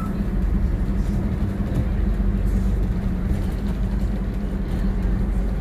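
Diesel multiple unit running along the line: a steady engine drone with a low hum, heard from inside the driver's cab.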